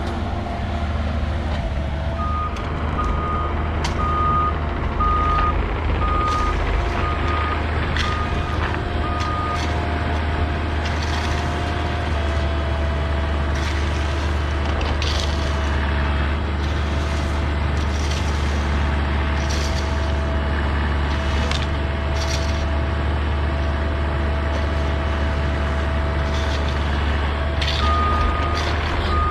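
Diesel construction machine running steadily, its backup alarm beeping for several seconds early on and again near the end, with scattered knocks as stone is moved.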